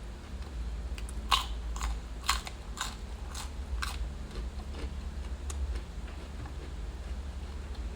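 Close-miked mukbang eating: a person biting into and chewing crunchy vegetables, a quick run of about seven crisp crunches in the first half, then fainter chewing. A steady low hum runs underneath.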